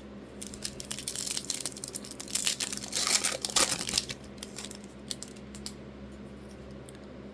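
Foil trading-card pack wrapper being torn open and crinkled by hand: a dense crackle for about three and a half seconds, loudest near the end of the tearing, then a few faint clicks as the cards are handled.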